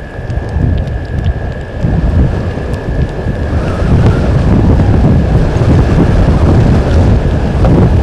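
Wind buffeting the outdoor camera microphone: a loud, low gusting rumble that grows stronger about two seconds in and stays strong.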